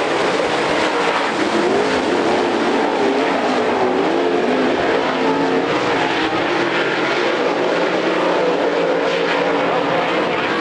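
A pack of dirt late model race cars' V8 engines running hard together, several engine pitches weaving up and down as the cars accelerate and lift through the turns.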